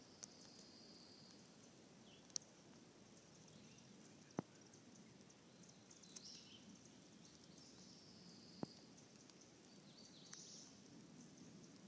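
Near-quiet woods with faint, high songbird calls coming and going several times, broken by three sharp clicks spread through it.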